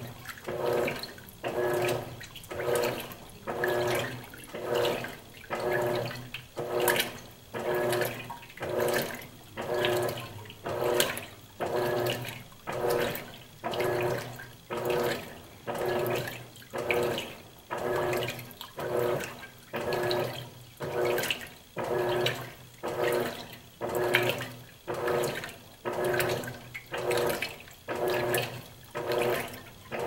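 Electrolux LAC12 top-load washing machine agitating on its Silent Cycle, sloshing water and clothes around the tub in a regular rhythm of about one stroke a second. This is the wash or rinse agitation before the drain begins.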